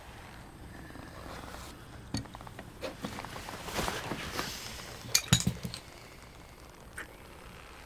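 Two people kissing up close: breathing and clothing rustle, with a few sharp clicks and clinks, the loudest cluster about five seconds in.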